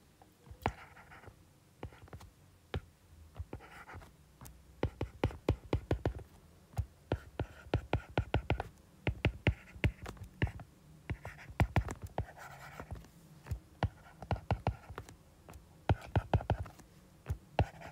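A stylus tapping and sliding on a tablet's glass screen while writing by hand: quick, irregular clicks in clusters, with a soft scratchy hiss between some of them.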